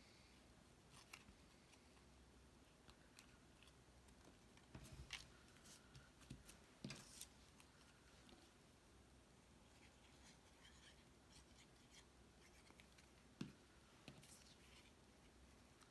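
Near silence with faint, scattered rustles and light taps of paper and card-stock pieces being handled, a small flurry of them around five to seven seconds in and one sharper tap near the end.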